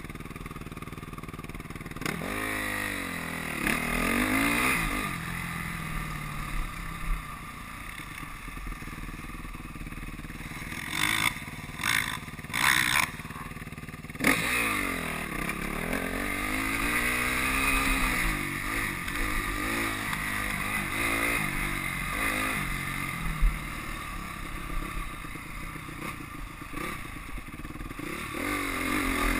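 Dirt bike engines revving, falling and rising in pitch in long swoops about two seconds in and again around fourteen seconds in, with a few short bursts of wind noise on the helmet camera near the middle.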